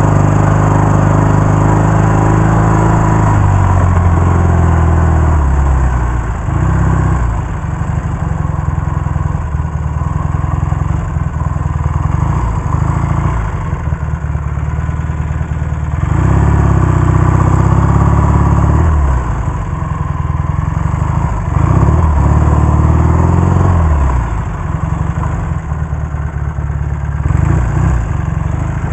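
1967 Triumph Bonneville T120R's 650 cc parallel-twin engine under way. The revs fall off, then rise and drop again several times as the throttle is opened and closed.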